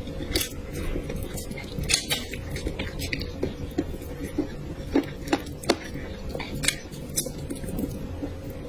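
Close-miked eating sounds: utensils clicking irregularly against dishes, with wet chewing and squishing of food in between.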